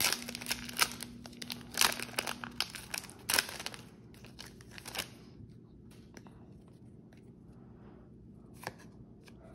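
Foil trading-card booster pack being torn open, with loud crinkling and crackling of the wrapper through the first half. Fainter rustles and small clicks follow as the cards are slid out.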